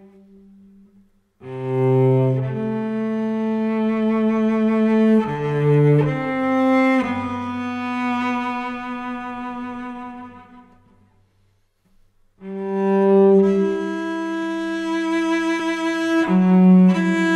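Solo cello bowed in slow, long held notes, sometimes two sounding together. The phrase fades away near the middle, with a second or so of near silence, and then a new phrase comes in strongly.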